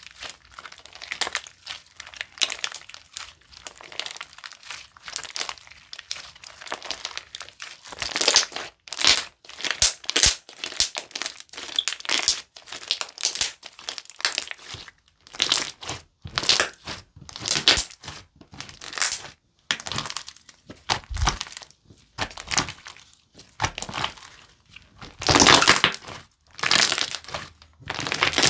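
Hands squeezing, poking and stretching a thick slime, Moong Slime's Red Bean Shoebung Sandwich (amazon base turning to glue-all), giving a string of short, crisp crackles about one or two a second. The longest and loudest squeeze comes near the end.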